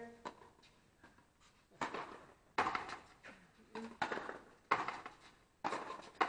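Frontenis rally: the small rubber ball cracks off strung rackets and the fronton's front wall. From about two seconds in there is a run of sharp strikes, roughly one a second, each with a short echo off the walls.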